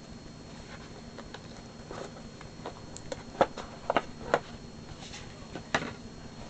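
Handling of a cardboard trading-card box and its packaging: scattered light taps and clicks, with a few sharper knocks in the middle.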